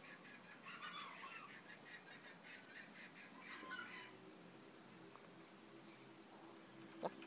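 Faint background of bird calls, a quick repeating chirping at first and then scattered calls, with a single sharp click near the end.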